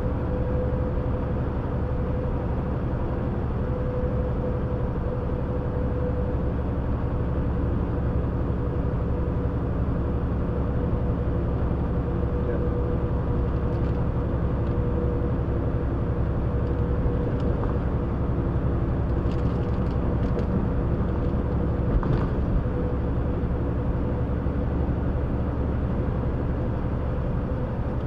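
Steady drone of a semi truck cruising at highway speed, heard from inside the cab: diesel engine hum with a few held tones over road noise. One brief knock comes late on.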